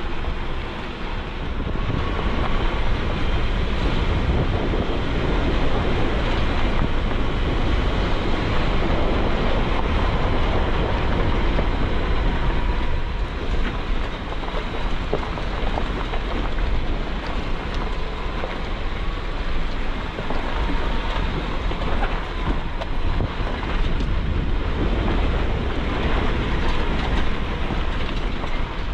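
Jeep Wrangler JK being driven over a rough, rocky dirt trail, heard from inside: a steady rumble of engine and tyres with constant rattling and clunking.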